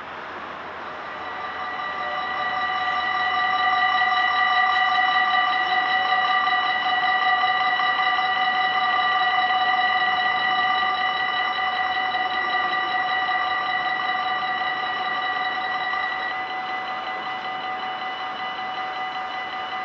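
Dutch level-crossing warning bells ringing continuously as the crossing closes, a steady multi-toned electronic ringing while the barrier arms come down. It grows louder over the first few seconds and drops a little about sixteen seconds in.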